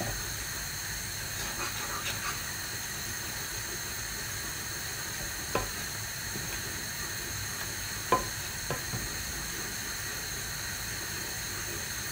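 Steady sizzling of food cooking in a pan on the hob, with a few light knocks about halfway through.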